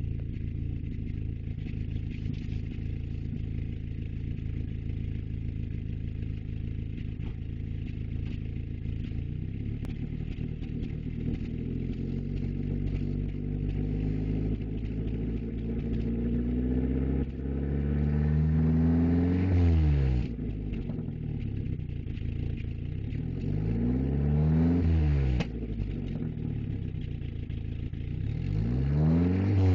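1994 Volkswagen Jetta GL engine idling, then revved up three times: a long slow climb and two shorter ones, each falling back sharply when the throttle is let off. The owner cannot tell whether it is misfiring or backfiring.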